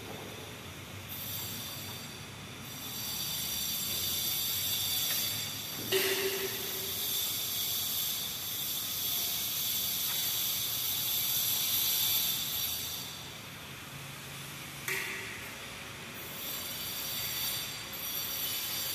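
Thin embossed aluminium stucco sheet swishing and rustling as hands slide over it, laying and pressing it flat onto plywood. There are two light knocks, about six seconds in and again near three-quarters through.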